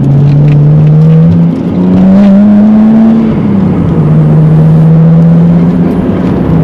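Nissan Skyline R33 GTS-T's turbocharged straight-six running under way. Its engine note dips briefly about a second and a half in, then climbs for a second or so. It drops back and holds steady to the end.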